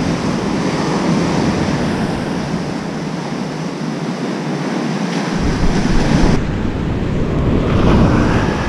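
Ocean surf breaking and washing up the beach, with wind on the microphone.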